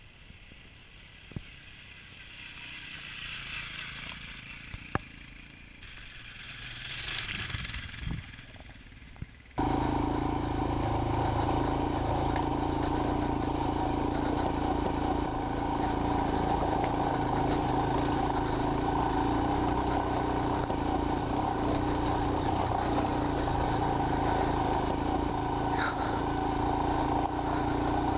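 Faint sound of motorcycles coming up a lane, swelling twice. About ten seconds in it switches abruptly to the loud, steady running of a Royal Enfield Himalayan's single-cylinder engine, heard close up from the handlebar camera and holding an even pitch on a dirt trail.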